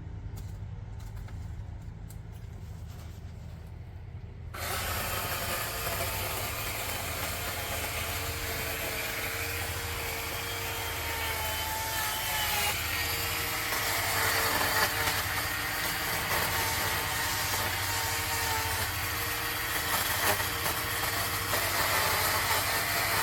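A chainsaw cuts into a tree limb about 4.5 seconds in, a steady low engine hum before it. It keeps cutting with a dense, even sawing noise to the end, a little louder near the middle.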